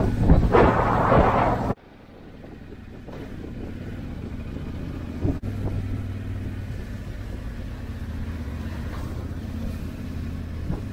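Wind buffeting the microphone for about two seconds, then cutting off abruptly; after that a motorcycle engine running steadily at low speed, slowly growing a little louder, with one brief click about five seconds in.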